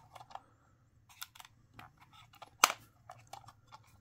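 Small plastic clicks and taps from handling a 2002 Hasbro Zam Wesell speeder toy, fingers working around its open canopy and cockpit, with one sharper click about two and a half seconds in.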